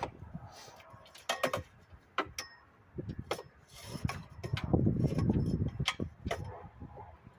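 Metal tools clicking and knocking against the parts of a lawn mower being taken apart, with a low rumbling stretch of handling noise in the middle.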